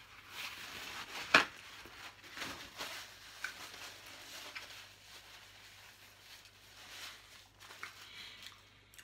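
Soft rustling of a paper napkin as hands and mouth are wiped, with one sharp tap about a second and a half in.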